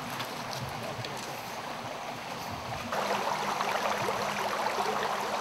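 Shallow creek running over stones, a steady rushing; about three seconds in it becomes louder and splashier.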